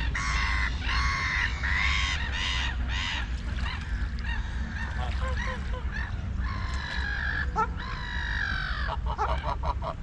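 White domestic ducks quacking in runs of honk-like calls, each about half a second long. One run comes in the first few seconds and another from about six and a half seconds in, ending in a quick flurry of short calls near the end, over a steady low rumble.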